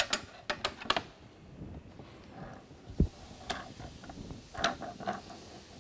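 Sharp clicks and snaps from a screen-printing Eco Frame as a tensioning bar levers its side to stretch the mesh, the frame clicking as it locks into place under tension. A quick run of clicks in the first second, a dull thump about three seconds in, and a few more clicks later.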